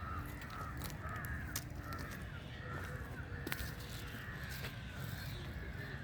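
Crows cawing over and over, over a steady low rumble. Two sharp clicks come about a second and a half in and again past halfway.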